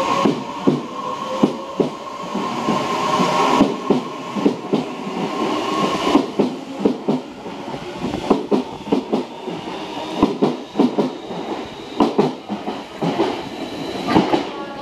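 Tobu 60000 series electric train pulling out of the station and speeding up past the platform. A steady electric whine stops about three and a half seconds in, then the wheels clatter over the rail joints in a quickening run of clicks.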